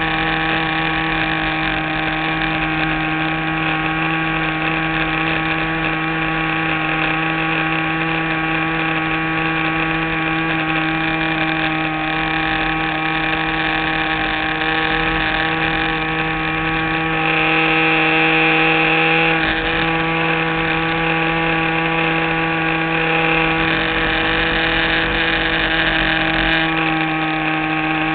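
Single-cylinder engine of an R/C model plane running steadily in flight, heard from the onboard camera in its waterproof housing. The pitch stays nearly constant, and it gets briefly louder about two-thirds of the way through.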